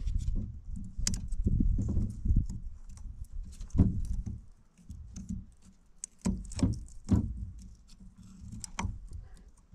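Snap ring pliers and a screwdriver clicking, scraping and knocking against a small steel fan-drive housing as an internal snap ring is worked into its groove. The sharp clicks come irregularly, about half a dozen, over a low rumble.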